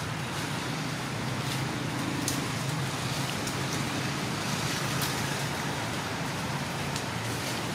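Steady outdoor background noise, a low rumble under a broad hiss, with a few faint clicks.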